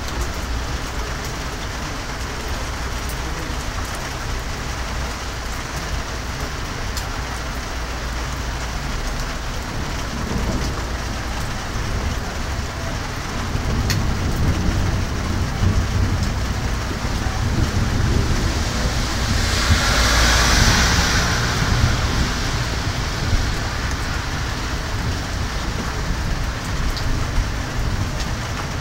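Steady rain falling during a thunderstorm. A low rumble swells from about a third of the way in, peaks about two-thirds through with a rush of hiss, then fades.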